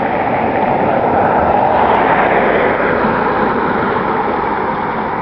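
Steady rushing vehicle noise that swells to its loudest about two seconds in, then eases off.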